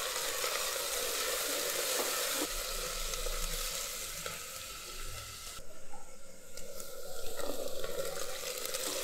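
Chopped onions sizzling in hot oil with mustard seeds and curry leaves in an open pressure cooker, stirred with a spatula that scrapes and taps the pot now and then. The sizzle thins out for a couple of seconds past the middle, then picks up again.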